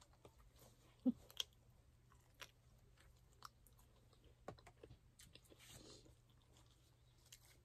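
A person chewing a fried chicken roll: faint eating sounds with a few scattered sharp mouth clicks and smacks.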